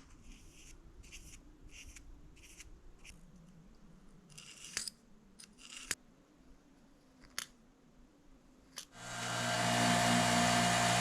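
A run of short scraping strokes, about two a second, then a few sharp clicks; about nine seconds in, an electric power tool's motor spins up and runs steadily with a hum.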